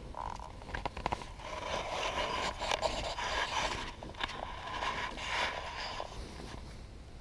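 Knife blade shaving curls down a wooden stick to make a feather stick: a run of several rough scraping strokes, with a few sharp clicks about a second in.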